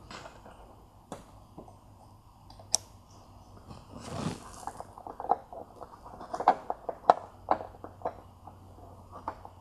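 Small plastic clicks and taps from a license plate light being pried out of its recess in a car's trunk lid, unplugged, and an LED replacement unit snapped into place with the fingers. There is a short brushing rustle about four seconds in, then a quick run of small clicks, over a faint low hum.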